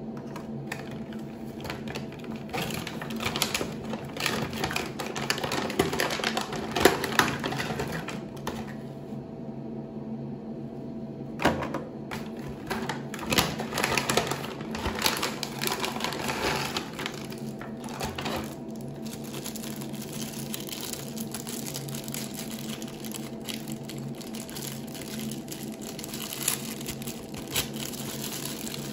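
A foil pouch and plastic wrapping crinkling and rustling as they are handled, torn open and unwrapped, in two spells of dense crackling with a lull between them, then lighter rustling for the last third, over a steady low hum.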